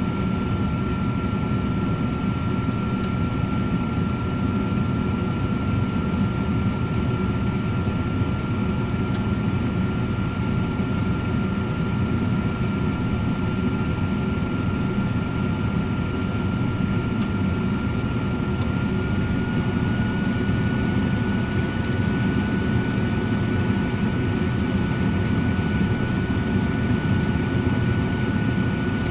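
Cosori 13-quart air fryer oven running: a steady fan whir with a thin high whine that steps slightly higher about two-thirds of the way through, with a faint click at that moment.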